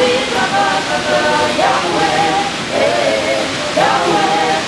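A choir of voices singing in long held notes that waver and slide between phrases about a second apart, over a steady rushing hiss.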